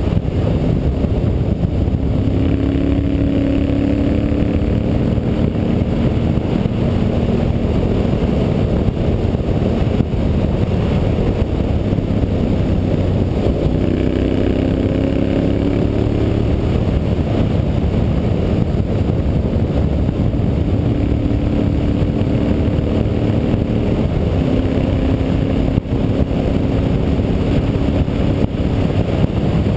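Carburetted Honda Varadero 1000 V-twin engine running on the move, with steady wind rush over the microphone. Its pitch climbs gently a few times as the bike accelerates.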